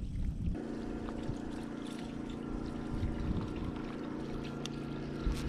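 A boat motor runs with a steady hum. It starts about half a second in and stops just before the end.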